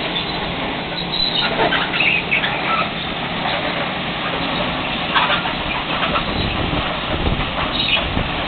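Loram ballast cleaner at work: its engines, conveyors and excavating wheel running in a steady, loud din as ballast stones are dug and carried, with scattered short high squeals and clinks of metal and rock. A heavier low rumble swells about seven seconds in.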